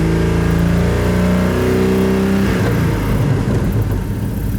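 2002 Chevrolet Trailblazer's 4.2-litre inline-six held at raised revs, then dropping back toward idle about two and a half seconds in. It revs up fine, even though a cylinder 3 misfire code is stored.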